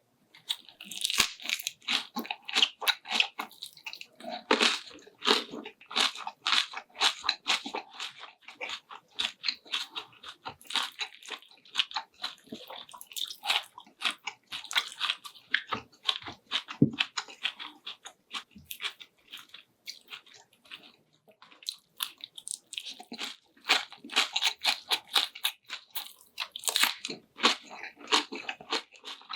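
A person chewing and biting food close to the microphone, with rapid, crunchy, moist mouth sounds from a meal of spicy stir-fried squid. It thins out for a few seconds about two-thirds of the way through.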